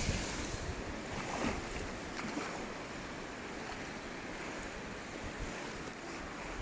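Ocean surf washing on a beach: a steady hiss of breaking waves, swelling a little in the first couple of seconds.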